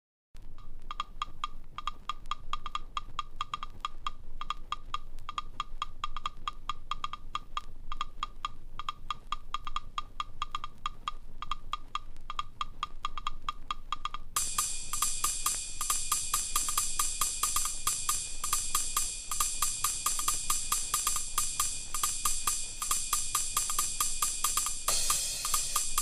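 Electronic techno track: a fast, dry clicking drum-machine percussion pattern. About halfway through, a bright, hissing hi-hat layer joins it.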